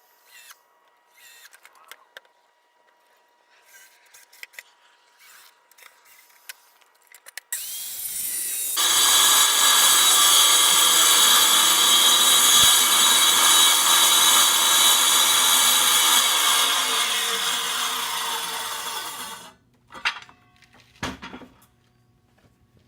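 Circular saw spinning up with a rising whine about a third of the way in, then cutting through the side of a wooden box for about ten seconds, stopping short of full depth, before winding down. A few light knocks and clicks come before and after.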